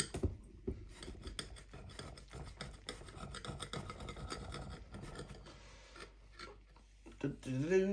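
Knife sawing back and forth through a sausage sandwich: a long run of quick scraping strokes through the bread.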